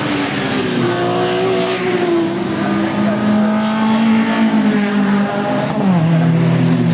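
Saloon race car engines running hard, their pitch rising and falling as they change gear, with a drop in pitch about six seconds in.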